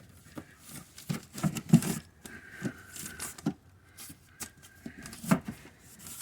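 Irregular light clicks, knocks and rustling of hand work as the side glass, wrapped in glass-setting tape, is fitted into the door's metal window channel. A few sharper knocks stand out.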